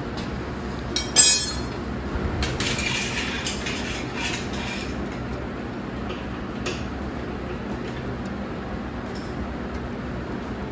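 A sharp metallic clank that rings briefly, about a second in, followed by a few seconds of metal clinking and jingling, over a steady low hum.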